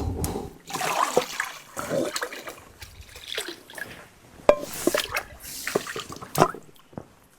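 Water sloshing, splashing and trickling as food is washed by hand, with a few sharp knocks about halfway through and near the end.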